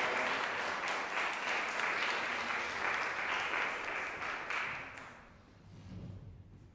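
Audience applauding in a concert hall, the clapping dying away about five seconds in.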